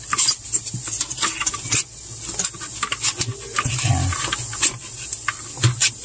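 Irregular clicks and rustles of plastic parts and wiring being pushed back into place by hand around a no-frost refrigerator's evaporator coil, over a steady high hiss.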